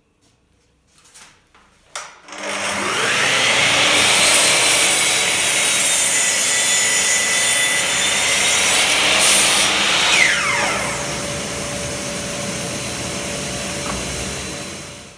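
An electric power tool's motor, after a couple of clicks, spins up with a rising whine and runs steadily at a high pitch. About ten seconds in its pitch drops to a lower steady hum, which dies away at the end.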